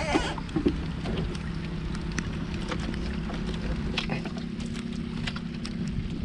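Small outrigger boat's engine running steadily, a low even hum, with scattered light ticks and patter over it.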